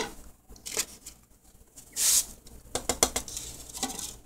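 Dried herbs and spices tipped off a plate into a glass mixing bowl: a few light taps and clicks of the plate against the bowl, and a brief hissing swish about two seconds in as the dry spices slide off.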